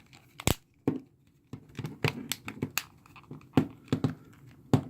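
The plastic back cover of an LG K20 Plus phone being fitted and pressed on by hand: a run of irregular sharp clicks and taps, with a brief quiet gap about a second in.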